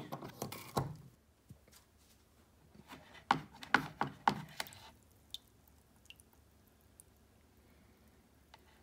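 A plug pushed into a power strip with a click, then a cluster of sharp clicks and knocks from handling the electrolysis setup about three to four and a half seconds in, followed by a few faint ticks.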